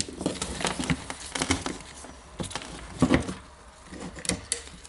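Irregular light clicks and knocks of small metal and plastic parts of an Eibenstock EHD 1300 core drill being handled during disassembly, with one louder knock about three seconds in.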